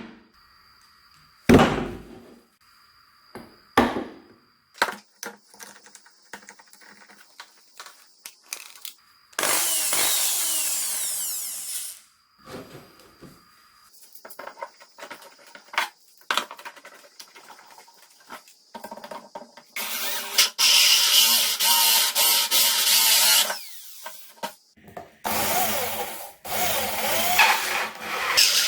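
Electric power drill running in several loud bursts of a few seconds each, with knocks and clicks of handling and workpiece contact between them.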